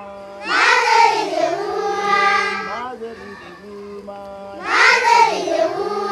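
A group of schoolchildren singing together in two loud phrases that start with sliding, rising notes, with quieter held notes between them.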